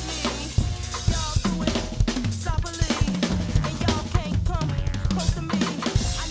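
Drum kit played in fast, dense fills: rapid strokes across snare and toms, with bass drum and cymbal crashes. Many tom hits drop in pitch just after they are struck.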